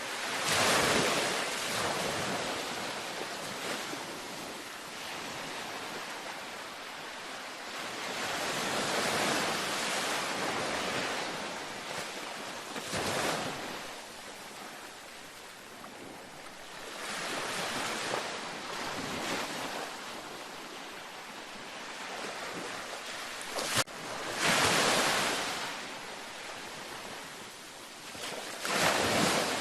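Ocean waves breaking and washing up a beach, the surf swelling and ebbing every few seconds, with one short sharp click late on.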